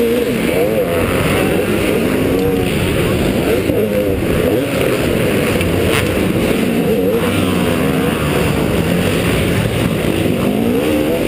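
KTM 250SX two-stroke motocross engine at race pace, its pitch rising and falling again and again as the throttle is opened and shut, heard close up from the rider's helmet over a heavy low rumble.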